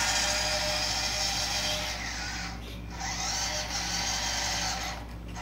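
Electric drive motor and metal-geared 2-speed transmission of a 1/16 RC dump truck whining as it drives across concrete, the pitch rising and falling with the throttle. The sound drops away briefly about halfway through and again near the end.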